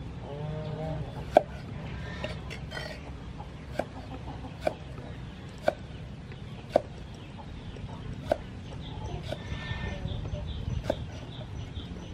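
Meat cleaver chopping tomato and onion on a wooden chopping board: single sharp knocks, about seven, spaced unevenly a second or so apart. Animal calls sound briefly in the background, just after the start and again a little before the end.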